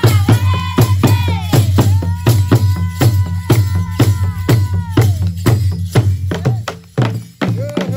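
Rwandan traditional drums beating a quick, steady rhythm with hand-clapping, accompanying a traditional dance. A high voice holds a long call from about two seconds in to about five seconds in.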